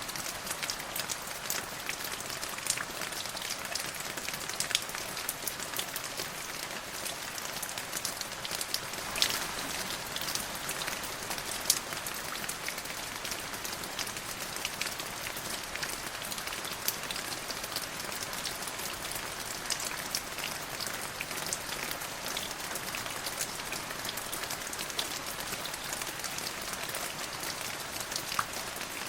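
Steady rain falling, a constant hiss with many separate drops ticking sharply on a hard surface, a few louder drop hits scattered through.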